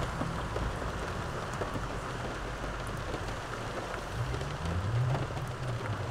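Rain falling on a parked car, heard from inside the cabin: a steady hiss with faint ticks of drops. A low rumble swells briefly about four to five seconds in.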